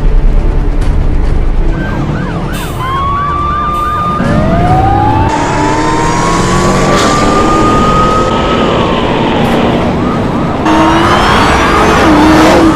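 Police car siren switching from a fast yelp, about five warbles a second, to a slow wail that rises, holds and falls, over steady car engine and road noise.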